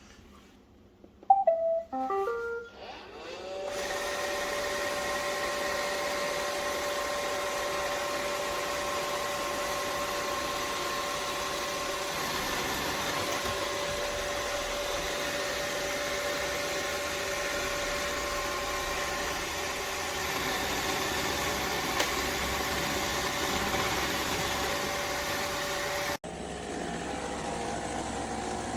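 iRobot Roomba Vac Essential robot vacuum playing a short electronic beep tune as it is started, then its motors spinning up and running with a steady whine and hiss. The sound breaks off abruptly and shifts near the end.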